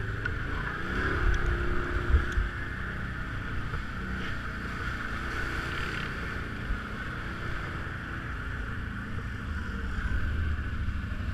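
BRP off-road vehicle's engine running steadily under way, with wind on the microphone and a couple of low thumps about two seconds in.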